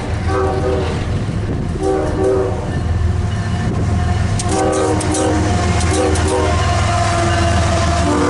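CSX diesel locomotive's air horn sounding a series of blasts, short and longer, over the steady deep rumble of the diesel engines as the intermodal train passes. A few sharp clicks from the wheels on the rail come about halfway through.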